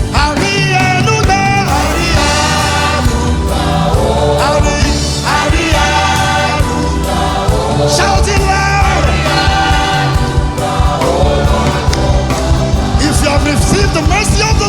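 Live gospel worship music: a band with steady bass and beat under many voices singing together.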